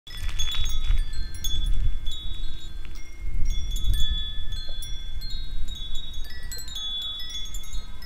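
Metal wind chimes ringing. They are struck at irregular moments, so several clear tones overlap and ring on, over a low rumble.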